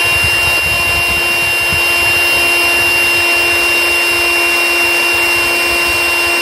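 Ryobi 18V ONE+ cordless high-volume power inflator (P738) running steadily, a constant motor whine over rushing air. It is blowing air through a hole drilled in the electric unicycle's shell onto the exposed heat sinks to cool the overheating controller board.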